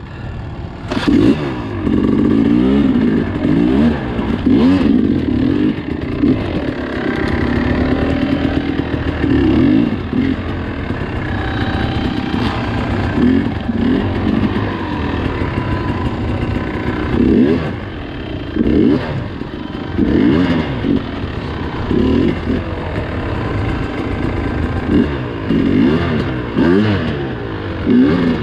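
Dirt bike engine revving in repeated bursts, its pitch rising and falling as the throttle is opened and closed, with some rattling.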